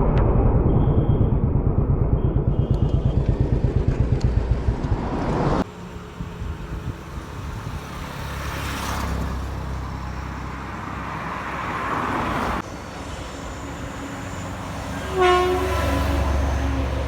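Heavy vehicle rumble with a fast pulse, then, after a cut, a steady rushing noise. A loud horn blasts twice near the end.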